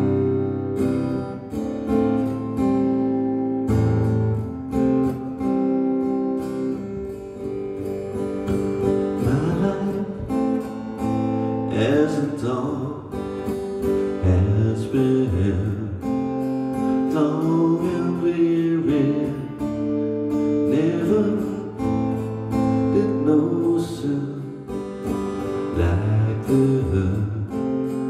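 Acoustic guitar strummed steadily, with a man's voice joining in singing about eight seconds in.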